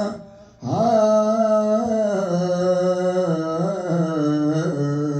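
A man's solo voice chanting an Urdu noha (lament). He breaks off for a breath just after the start, then holds one long drawn-out sung line whose pitch wavers slowly and steps down near the end.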